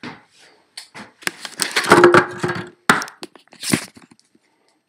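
Handling noise on the recording device's microphone: a dense clatter of knocks, scrapes and crackles as the device is picked up and moved, loudest about two seconds in, with a brief squeak-like tone in the middle.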